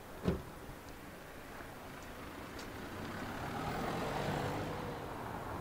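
A car driving past on a cobblestone street, its tyre and engine noise swelling to a peak about four seconds in and then easing. A single brief thump comes just after the start.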